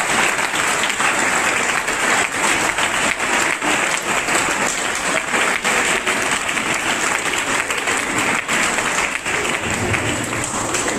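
Audience applauding steadily after a speech, many people clapping at once.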